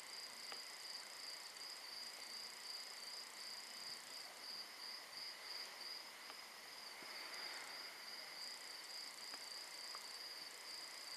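Faint, steady high-pitched trilling of night insects, with a few tiny clicks now and then.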